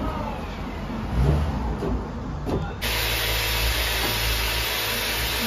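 Knocks from a wooden panel being handled on a table, the loudest a thump about a second in; then a woodworking machine's motor cuts in suddenly and runs steadily, a low hum under an even rushing noise.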